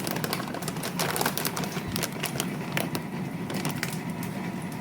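Hot sunflower oil crackling and popping in a frying pan as frozen samosas fry, a dense, irregular patter of small pops.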